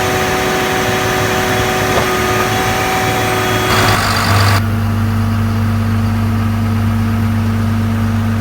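Caterpillar AP655D asphalt paver's diesel engine running steadily. About four and a half seconds in, the sound changes abruptly: the higher whine drops away and a steady low hum is left.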